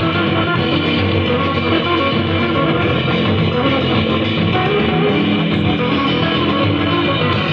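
A song with guitar, bass and drums played loudly through a single-channel mono amplifier board built on 5200 output transistors, driving a speaker during a sound test.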